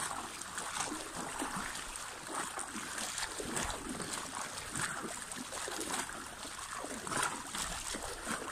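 Pool water splashing and sloshing as arms sweep back and forth through it, a run of repeated, uneven swishes.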